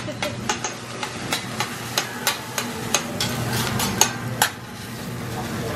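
Hibachi chef's metal spatula and knife tapping and clacking on a steel teppanyaki griddle while chopping fried rice: irregular sharp clacks several times a second over a steady low hum.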